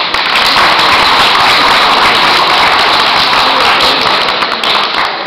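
Audience applauding: a dense patter of many handclaps that eases slightly near the end.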